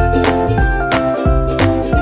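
Background music: an instrumental track with a steady beat, held melodic notes and a bass line.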